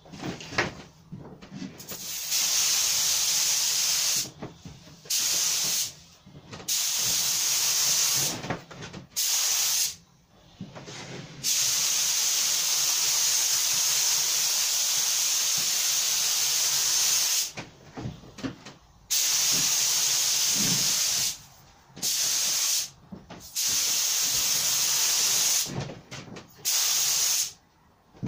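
Compressed-air gravity-feed spray gun with a 1.8 mm nozzle spraying paint: a steady hiss that starts and stops in about nine bursts as the trigger is pulled and released, the longest pass lasting about six seconds in the middle.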